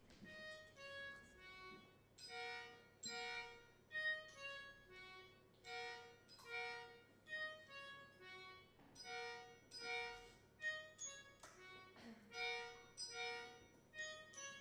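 Music: a tune of short pitched notes and chords played in a steady rhythm.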